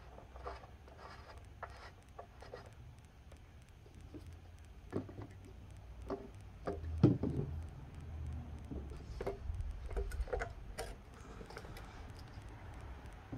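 Handling noise from a Partner K700 cut-off saw on concrete: scattered clicks and knocks, with one louder thump about seven seconds in as the saw is tipped over onto its side.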